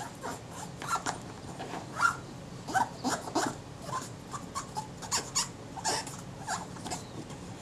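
Cardboard-stemmed cotton bud rubbing against an aluminium lens ring in short, irregular strokes, with small squeaks and scratches several times a second as it scrubs dust and old grease out of the grooves.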